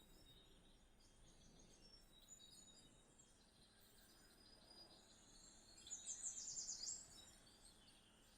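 Faint bird chirps playing from a cat-entertainment video on a TV, with a louder quick run of repeated chirps about six seconds in.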